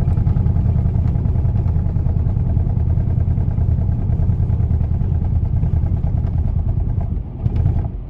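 2011 Nissan Rogue's four-cylinder engine idling very roughly, heard from inside the cabin, with an uneven, stumbling beat. It is the sound of a random-cylinder misfire (code P0300), which the owner puts down to worn ignition coil packs and spark plugs.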